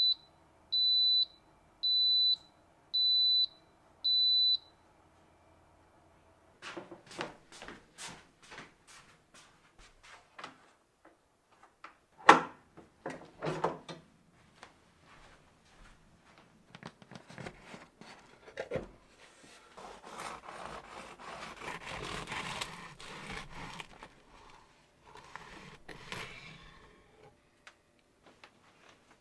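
Home bread machine beeping five times, evenly spaced, as it signals the loaf is finished baking. Several seconds later come irregular clicks and knocks, with one sharp knock about twelve seconds in, as the machine is opened and the bread handled, followed by a stretch of rustling.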